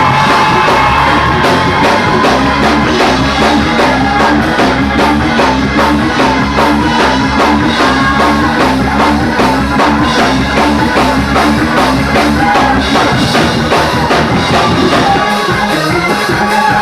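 Church praise band playing fast, loud music on drum kit and bass, the bass line climbing in repeated runs.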